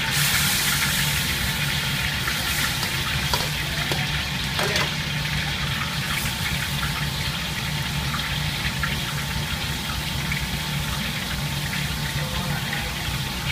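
Whole fish braising in a thick sauce in a wok: the sauce bubbling and sizzling steadily, louder for the first second or so as sauce splashes over the fish, with a few small clicks a few seconds in.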